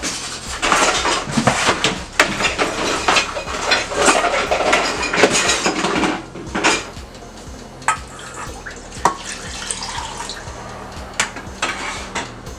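Pots, dishes and metal cutlery clattering and clinking during cooking, busiest over the first six seconds and then down to occasional knocks.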